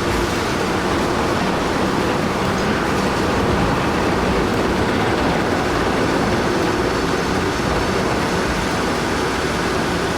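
Steady, loud mechanical noise of a heavy vehicle running, with a few faint steady tones in it and no clear changes.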